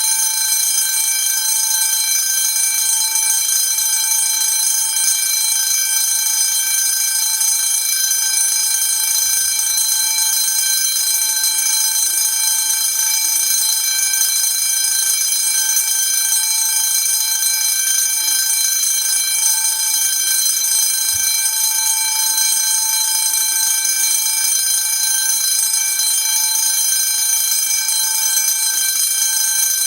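A 10-inch 24 V DC fire alarm bell ringing continuously. Its strokes blur into one steady, unbroken ring that holds at an even level.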